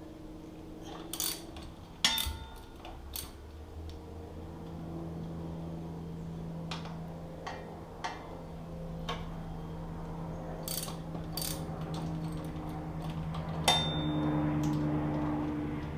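Hand ratchet clicking and metal tool clinks as the pinch bolts on a motorcycle's front fork leg are loosened with a 6 mm socket. A steady low hum runs behind from about four seconds in.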